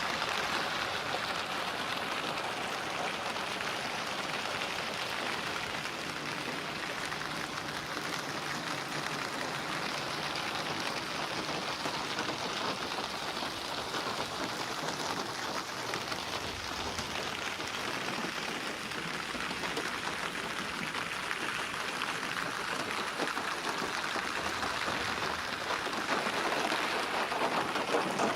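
Steady rain falling, an even continuous hiss of drops without any distinct single sounds standing out.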